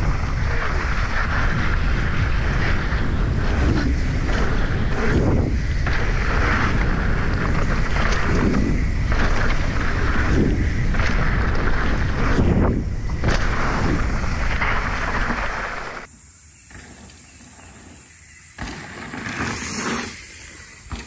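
Wind rushing over a helmet-mounted action camera's microphone, with mountain-bike tyres rolling over a dirt trail, during a fast descent. About sixteen seconds in the rumble cuts off abruptly to much quieter sound, which swells briefly near the end.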